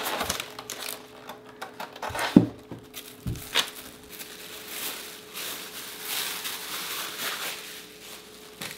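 Plastic bag wrapping crinkling and rustling as a compound microscope is lifted out of its styrofoam packing and stood on a wooden table, with two sharp knocks a little under a second apart, about two and a half seconds in.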